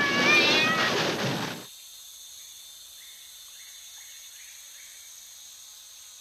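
A loud, cat-like animal yowl with a wavering pitch that cuts off sharply less than two seconds in. Then a faint background with a few soft, evenly spaced chirps.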